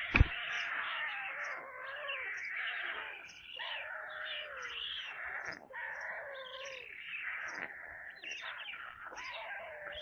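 Young white storks giving continuous mewing, cat-like begging calls that waver up and down in pitch, several overlapping, as they feed on the nest. A single sharp knock sounds at the very start.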